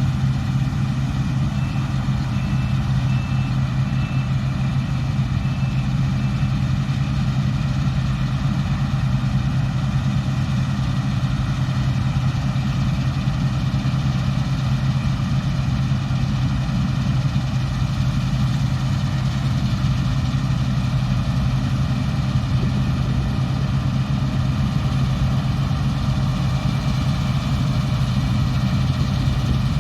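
Combine harvester's diesel engine running at a steady speed, a constant deep hum with no change in pitch. A few short, faint high beeps sound in the first few seconds.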